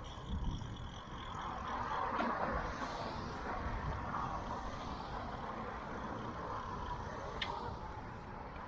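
Steady outdoor traffic noise, a low rumble and haze without speech, with two short clicks, about two seconds in and near the end.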